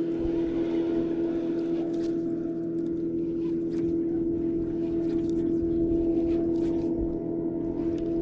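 Electric trolling motor on a bass boat running at a steady speed, giving an even, constant-pitched hum, with faint scattered ticks over it.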